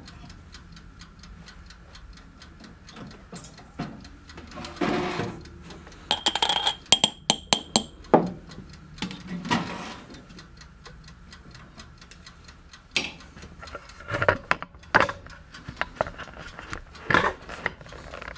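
Steady ticking of the toaster oven's mechanical dial timer. Over it, a hot lead jig head clinks and rattles against a glass jar as it is shaken in the coating powder, with a glassy ring about six to eight seconds in. A few knocks follow near the end.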